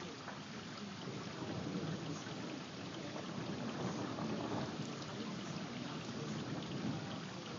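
Steady rain falling in a thunderstorm.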